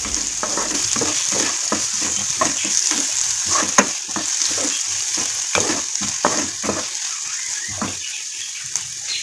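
Chopped onions and garlic sizzling in hot oil in a non-stick pan while a wooden spatula scrapes and stirs them, about two strokes a second. The onions are being fried until golden brown.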